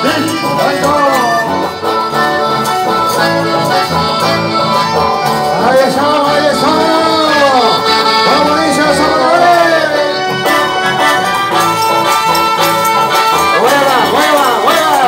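Live chamamé band playing, with the accordion carrying the melody over strummed acoustic guitars, heard loud through the hall's PA.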